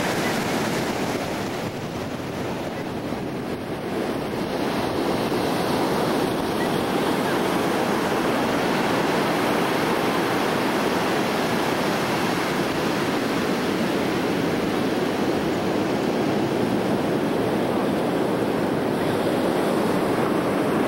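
Ocean surf washing onto the beach with wind, a steady rush of noise that eases slightly about two seconds in.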